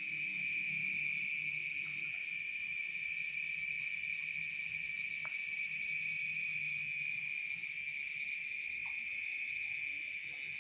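Steady, continuous trilling of night insects in chorus: a high trill and a thinner, shriller one above it, unbroken throughout.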